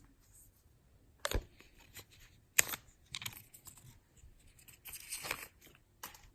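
Unboxing handling sounds from an AirPods Pro case and its packaging: scattered sharp clicks and light taps, with a longer papery rustle about five seconds in.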